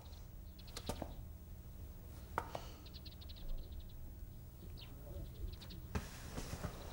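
Quiet background ambience with faint, scattered bird chirps and a couple of soft clicks.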